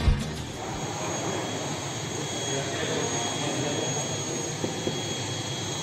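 Steady whine and rush of an aircraft's turbine engine running, with a thin high tone held steady throughout. Guitar music cuts off in the first half-second.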